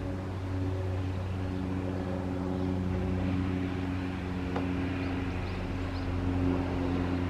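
Cessna 208 Caravan's single turboprop engine and propeller droning steadily as the plane circles low overhead, with a slight rise in level near the end.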